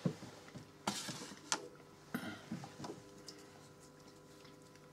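Several light clicks and knocks of airbrush gear being handled on a worktable, bunched in the first three seconds, with a few brief hisses, over a faint steady hum.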